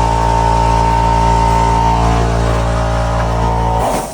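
Job-site air compressor for the pneumatic trim nailers running with a loud, steady hum, then cutting off abruptly near the end.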